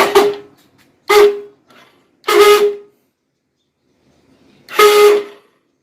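Hero HF Deluxe's electric starter motor pressed four times in short bursts, each giving a loud, steady buzz of about half a second while the engine does not start. This is the faulty self-start noise, which the mechanic suspects comes from inside the starter motor.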